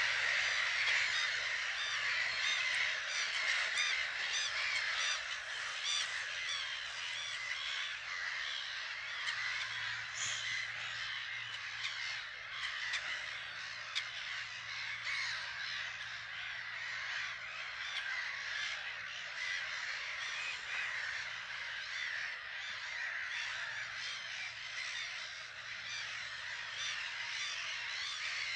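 Black-headed gull colony: a dense, unbroken chorus of many harsh, overlapping calls.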